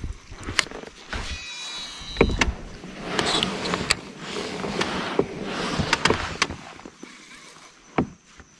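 Baitcasting fishing reel at work: a whirring, mechanical noise of the spool and gears for several seconds, with scattered sharp clicks and knocks from handling the rod.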